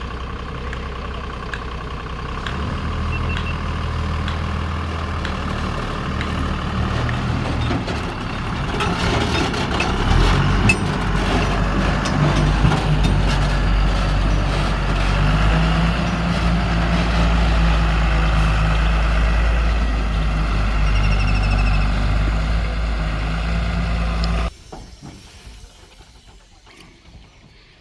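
A JCB backhoe loader's diesel engine runs under working load, its pitch stepping up and down. It gets louder about ten seconds in, then cuts off suddenly near the end.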